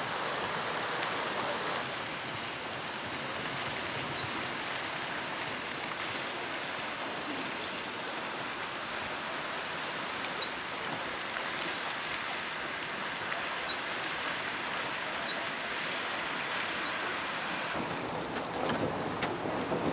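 Fountain jets spraying and splashing into water: a steady rushing hiss that changes character about two seconds in and again near the end.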